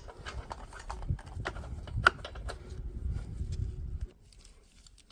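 Irregular metal clicks and knocks from handling a new spark plug and tool while fitting it into a lawnmower engine, over a low handling rumble; it goes quiet about four seconds in.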